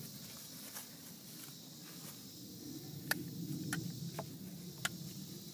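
A few sharp clicks of handling noise in the second half, over a faint steady outdoor hiss.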